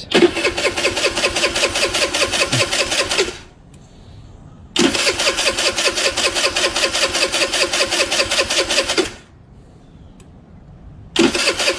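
Wolf 50X 50cc scooter's electric starter cranking the engine in three tries: about three seconds, a pause, about four seconds, another pause, then a third try starting near the end, with the engine not yet catching. The engine is being turned over to draw fuel into a newly installed carburetor.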